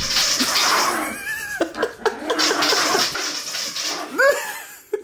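Small dog playing rough with its favourite toy, giving two high, arching squealing cries, about a second in and again near the end. Between them come runs of quick short yips, with scrabbling at the start.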